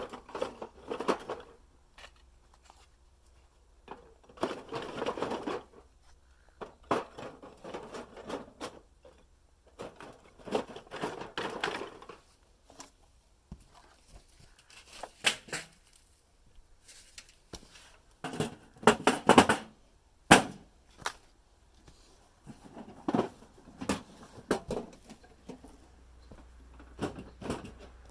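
Irregular bursts of crunching and rustling with sharp cracks, about a dozen over the stretch, with quiet gaps between.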